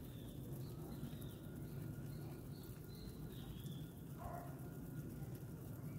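Faint birds chirping, a few short calls in the first half, over a steady low rumble of outdoor background noise.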